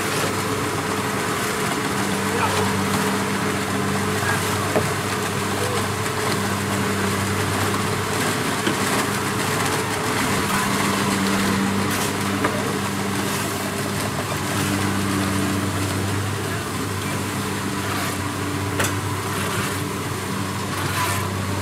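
Kubota DC-70 Plus combine harvester's diesel engine running with a steady drone, with a few sharp clicks in the second half.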